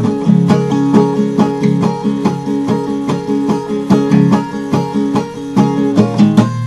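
Steel-string acoustic guitar strummed in a quick, steady rhythm of open chords, several strokes a second, with the chord changing about six seconds in.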